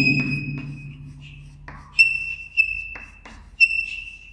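A marker squeaking in about four short, high-pitched strokes as someone writes or draws, each stroke starting with a light tap.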